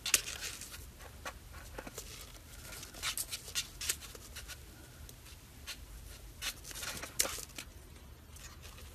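Faint scratching, rustling and small clicks of a kitten pawing and mouthing the edge of a laptop while squirming on a satin cover, in short clusters just after the start, around three to four seconds in and around seven seconds in, over a low steady hum.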